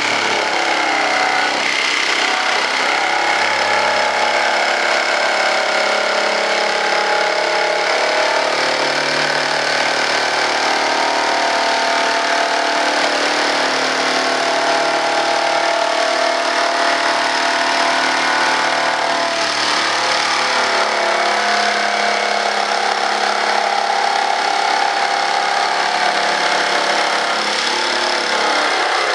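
Handheld electric jigsaw running continuously as it saws through a sheet, its motor pitch shifting slightly as the load changes.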